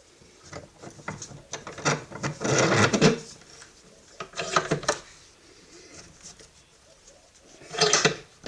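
Irregular clattering and knocking in three bursts: one lasting about two and a half seconds from about half a second in, a shorter one near the middle, and a brief one near the end.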